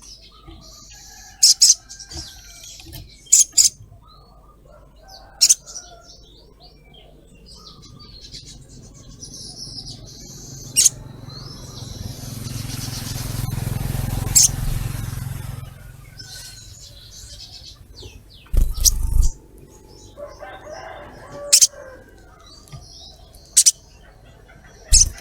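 Sogok ontong (little spiderhunter) calling: sharp, high 'cret' chirps repeated every second or two, with softer twittering between them. About halfway through, a low rushing noise swells and fades.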